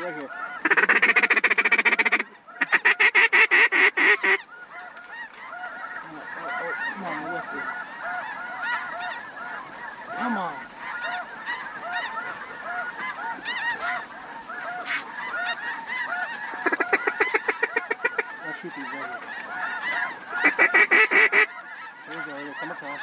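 A large flock of waterfowl calling, with many overlapping goose-like honks running on throughout. Four louder, closer bursts of fast chattering calls stand out: two in the first four seconds, then two more about three-quarters of the way through.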